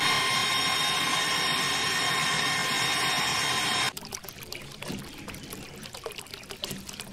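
Small DC motor of a toy drilling rig running with a steady whine and hiss as its bit bores into wet sand. About four seconds in it cuts to a much quieter stretch of water trickling and dribbling from a small pump outlet pipe onto sand, with light clicks.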